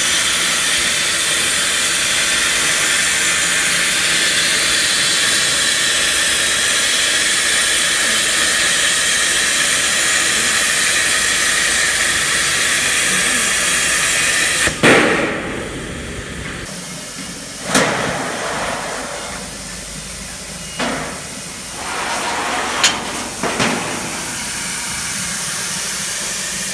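CNC plasma cutting torch hissing steadily as its arc cuts through steel plate. The hiss stops abruptly with a sharp crack about fifteen seconds in, and a few separate short knocks follow.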